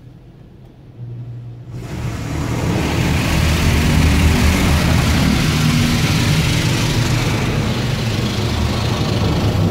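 An automatic car wash's high-pressure rinse spraying water over the vehicle, heard from inside the cabin. A low machine hum comes on about a second in, then a loud, steady rush of spray builds up about two seconds in and holds.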